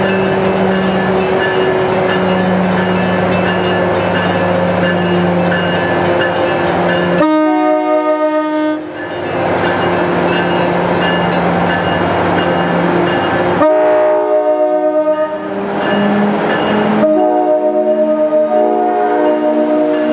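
NJ Transit ALP-45DP locomotive arriving under diesel power with its engine drone steady. It then sounds its air horn in three long blasts, about seven, fourteen and seventeen seconds in, the last one held for several seconds.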